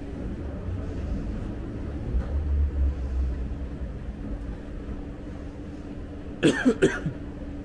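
Escalator running with a steady hum and low rumble. Near the end a person gives three quick, sharp vocal bursts, the loudest sound heard.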